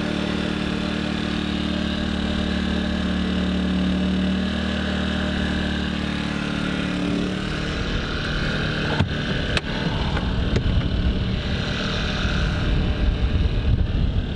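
A Firman portable generator running steadily with a loud, even hum while it powers a 25-amp speed charger to charge the camper batteries. About seven seconds in the hum fades, leaving a rougher, uneven rumble with a few sharp knocks.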